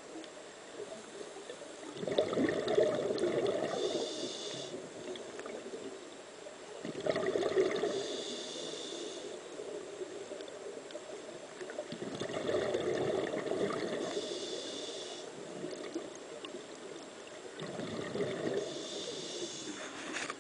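A scuba diver breathing through a regulator underwater: four breaths about five seconds apart, each a bubbling rumble of exhaled air followed by a short hiss.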